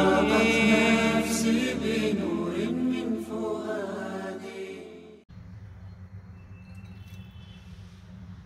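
Arabic devotional song (nasheed) sung over a steady low drone, fading out and stopping about five seconds in. A faint low steady hum follows.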